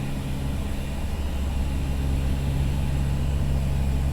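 Steady drone of the Convair CV580's two Allison 501 turboprop engines and propellers at approach power on short final, heard from the cockpit.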